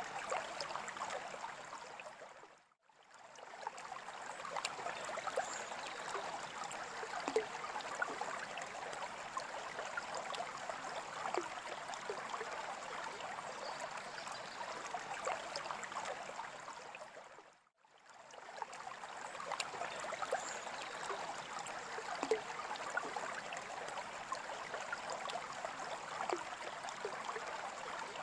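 Running water trickling and splashing steadily, with small bubbling crackles; it fades out briefly and comes back twice, about 3 s and 18 s in.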